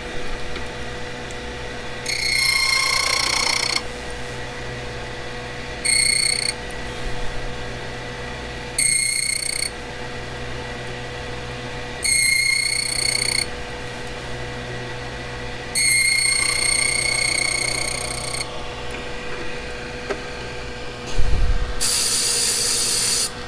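Blitz code key machine running steadily while its cutter wheel bites into a brass M10 Master Lock key blank in about six short, high-pitched grinding bursts: the individual cuts of the key's bitting.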